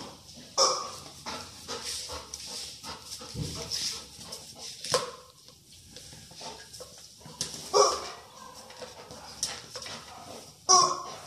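Yellow rubber chicken toy squawking in short bursts as a dog bites and squeezes it, the loudest squawks about half a second in and about eight seconds in.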